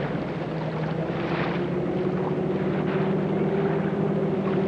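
Pickle-fork powerboat's engine running steadily as the boat comes in, a low drone that grows a little louder and firmer after about a second.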